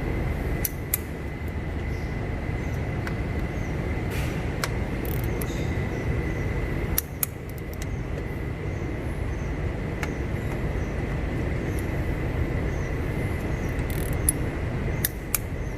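Steady low mechanical rumble with a thin, steady high whine, and scattered sharp clicks and clinks, typical of hand tools on engine metal in a busy workshop.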